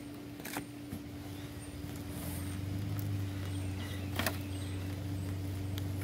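A steady motor hum that grows louder about two seconds in, with a few short sharp clicks over it.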